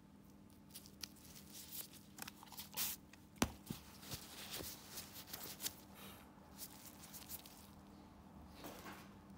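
Faint close-up handling sounds: medical gloves rustling and crinkling, with small irregular clicks and scrapes of pedicure tools on a toenail, and one sharp click about three and a half seconds in.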